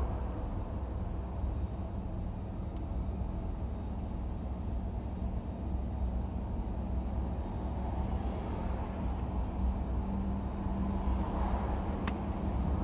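Street traffic: car engines running in a steady low rumble, swelling as a car passes close near the end, with a single sharp click just before the end.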